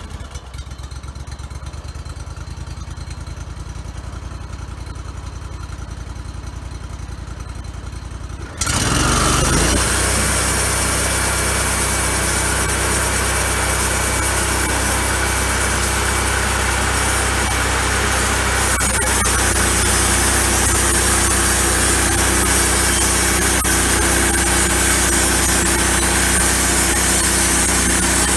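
Gas engine of a homebuilt bandsaw sawmill running at idle just after starting, then throttled up sharply about eight seconds in to drive the band blade at full speed. It stays loud and steady, and near the end the blade is cutting into the log.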